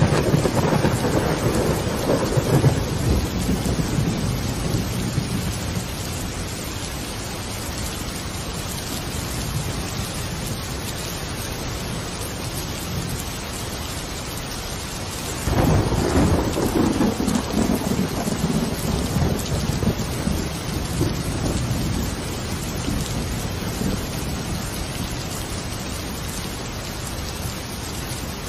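Steady rain with two rolls of thunder, one right at the start and another about halfway through, each rumbling low and fading over several seconds.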